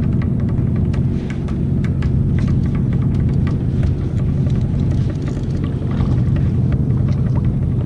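Background music: a steady low drone with scattered sharp hits, laid over the fish being reeled in.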